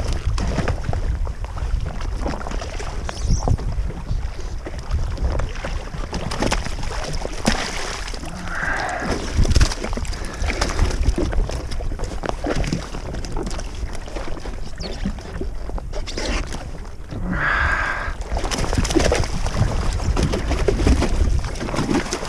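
Wind on the microphone and water sloshing against a jet ski's hull, with scattered knocks and clatter.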